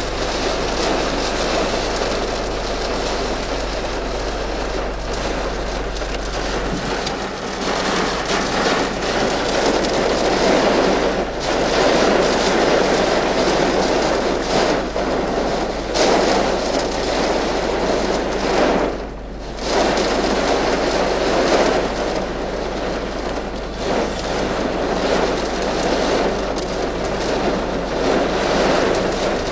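Storm wind gusting hard, with rain: a loud rushing that swells and eases in waves and drops away briefly about two-thirds of the way through.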